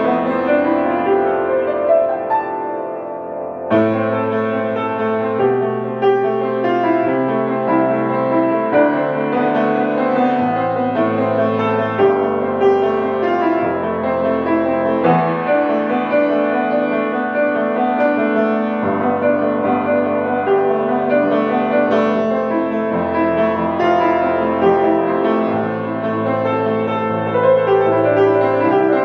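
Grand piano playing a rock ballad: sustained chords over bass notes that change every second or two, with a brief softer passage about three seconds in before the playing comes in firmly again.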